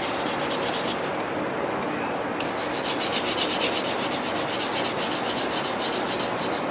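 Fine 1200-grit sandpaper rubbed by hand in quick, even back-and-forth strokes on the steel blade of a vintage Victorinox folding knife, a light scratchy hiss that keeps a steady rhythm.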